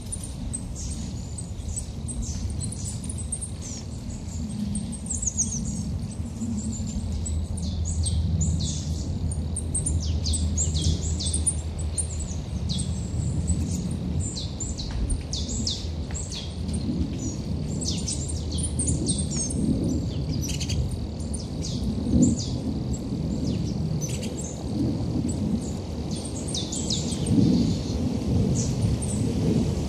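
Small birds chirping continually, many short high calls, over a low rumble that swells in the second half with two louder surges, the last near the end.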